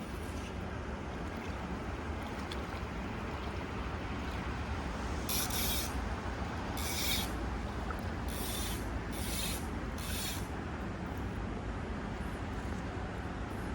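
Steady rush of a flowing trout stream, with five short hissing swishes in the middle, the last three in quick succession.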